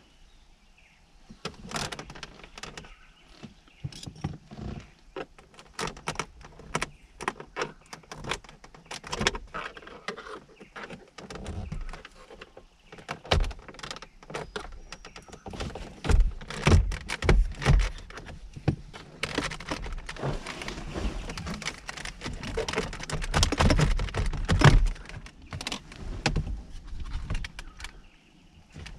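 The plastic centre dash trim of a Toyota Hilux being pried and worked loose by hand, its clips being popped out: a busy run of plastic clicks, knocks and rattles, with heavier knocks in two spells in the second half.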